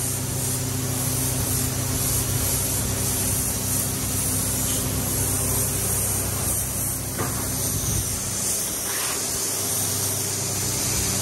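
Compressed-air paint spray gun hissing steadily as it sprays black paint onto an alloy wheel rim, over a steady low hum.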